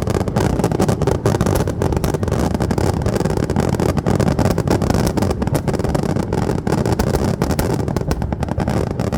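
Fireworks going off in a dense, continuous barrage: rapid overlapping bangs and crackles over a steady rumble.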